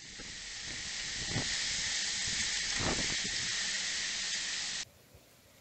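Hurricane downpour and wind heard through an outdoor camera's microphone: a steady, dense hiss of driving rain with a couple of low gusts buffeting the mic. It cuts off abruptly about five seconds in.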